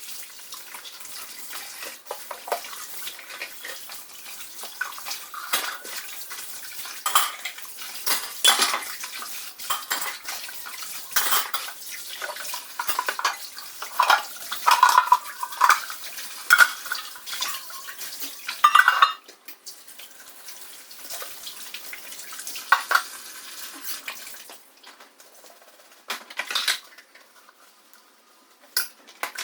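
Plates, pots and cutlery clinking and clattering as they are hand-washed at a kitchen sink, with water running. The busy clatter eases off about two-thirds of the way in, leaving a few separate knocks.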